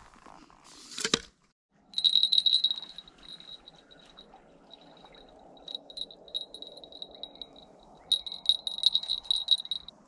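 Small bite bell on a fishing rod jingling in quick shaken runs, strongest about two seconds in and again near the end, with sparser tinkles between. A brief loud rustle of handling about a second in.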